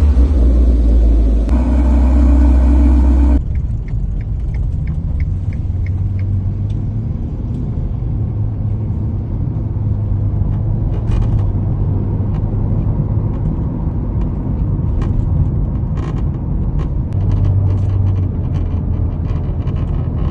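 Ferrari Portofino heard from inside the cabin: a steady low engine and road drone, louder for the first few seconds, with short irregular rattling clicks from the dashboard near the windscreen. The rattle comes from the dashboard's metal clips buzzing in their mounts when the engine sets up resonance.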